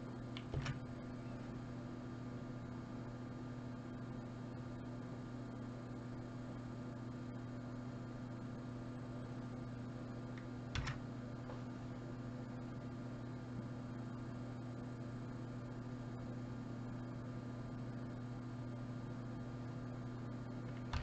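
Steady low electrical mains hum with a buzzy edge, broken by two short sharp clicks: one about half a second in and one about halfway through.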